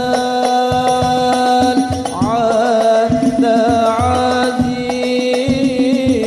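Sholawat, an Arabic devotional song: a voice singing long, wavering melodic phrases with held notes over regular percussion strokes.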